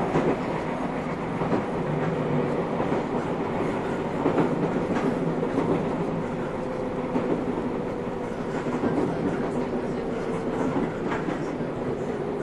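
Running noise heard inside a JR West 221 series electric multiple unit motor car: a steady rumble of wheels on rail under a faint steady hum, with occasional light rail-joint clacks.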